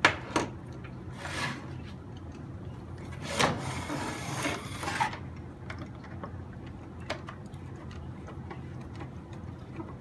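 Handling noise from a plastic RC snowcat chassis and hand tools on a workbench: two sharp clicks at the start, a short rustle, then a scraping rub of about two seconds as the chassis is slid and turned around on the bench. Light ticks follow as a screwdriver works a screw.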